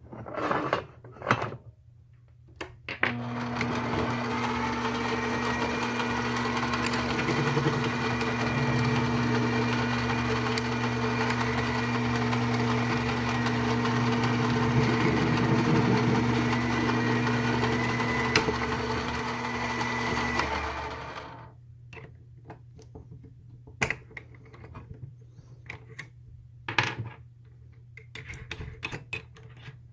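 Mini lathe running steadily with a motor whine, starting about three seconds in and stopping about two-thirds of the way through, while a drill bit bores into the Berdan primer of a 54R cartridge case to free it. Light clicks and knocks of handling come before and after.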